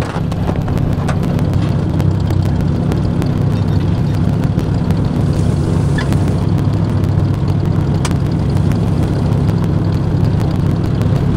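Tractor engine running steadily under way, with scattered light clanks and rattles as it travels over rough ground.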